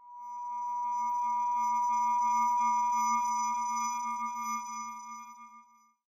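Held electronic tone of a closing logo jingle, one steady pitch near 1 kHz with fainter higher tones above it. It swells in over the first second, holds, and fades away near the end.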